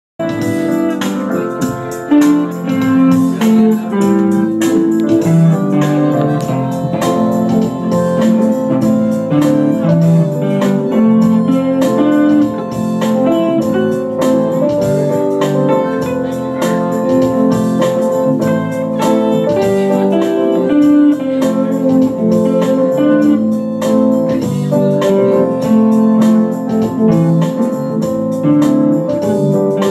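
Live band music: an electric guitar solo over organ-toned keyboard chords and a second electric guitar.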